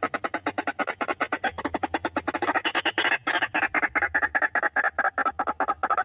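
White-breasted waterhen calling: a fast, unbroken run of harsh croaking notes, about nine a second.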